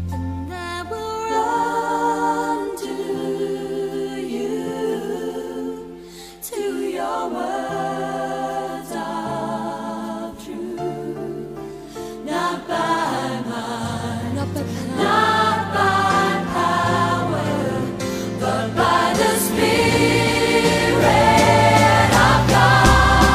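Live contemporary worship song: choir singing with band accompaniment. It dips briefly about six seconds in, then grows fuller and louder from about halfway.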